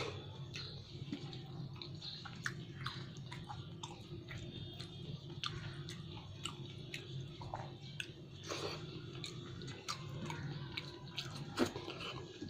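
Close-up chewing and wet mouth clicks of someone eating pulao rice with vegetables, the clicks irregular and scattered, over a steady low hum.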